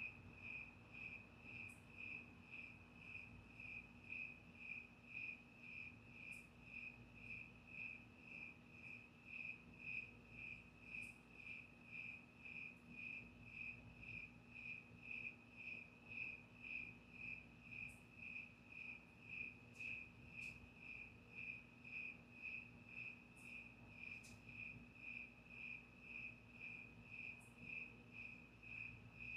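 A cricket chirping, an even, unbroken series of short single-pitched chirps at about two and a half a second.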